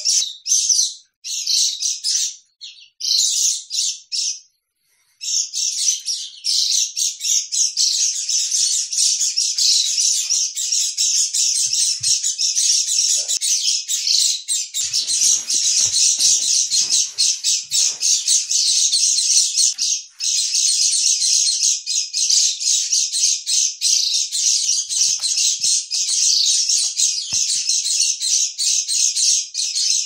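White-eyes (pleci) calling, a recording made to lure the birds for trapping: rapid, continuous high-pitched twittering chirps, with a few brief pauses in the first five seconds.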